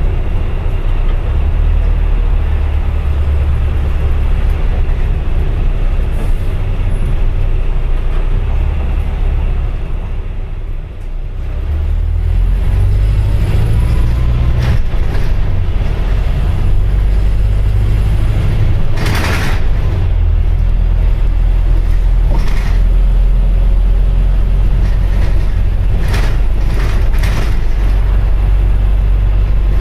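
Volvo B5LH Wright Gemini 3 hybrid double-decker bus heard from the upper deck while under way: a steady low drone of drivetrain and road noise. It dips briefly about ten seconds in and then builds again. A short burst of hiss comes a little before twenty seconds, and a few rattles follow near the end.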